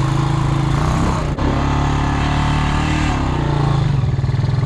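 Honda Rancher 350 ATV's single-cylinder four-stroke engine running under throttle. The engine note dips briefly with a click about a second and a half in, then holds steady.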